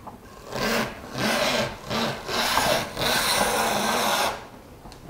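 GaffGun cable-taping tool pushed across a wood floor over a cable, its rollers running and gaffer tape pulling off the roll, in five noisy strokes, the last and longest about a second and a half.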